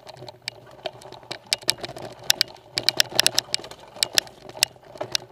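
Mountain bike clattering down a rocky, loose trail: irregular sharp knocks and rattles from the bike over the stones, with a steady rumble of tyres on gravel underneath.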